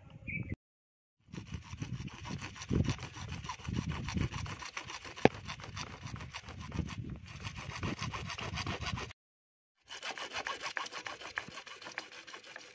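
A hand-held hacksaw blade sawing through a white PVC water pipe in quick back-and-forth strokes. It starts about a second in, breaks off briefly near the three-quarter mark, then carries on.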